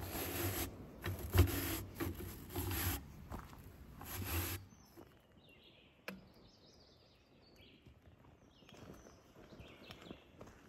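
A shoe scrubbed back and forth on the stiff bristles of a boot-brush station, several scratchy strokes over about four seconds. Then faint birdsong with short high chirps.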